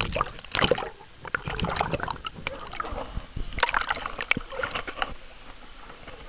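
Swimming-pool water sloshing and splashing around a camera held underwater and brought up through the surface, with bubbling crackles. The crackles come in two flurries, the second as the camera breaks the surface about four seconds in.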